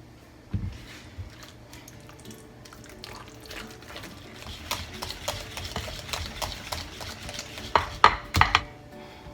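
A utensil stirring cream cheese and sugar in a mixing bowl, scraping and clinking against the bowl, with a few louder knocks on the bowl near the end.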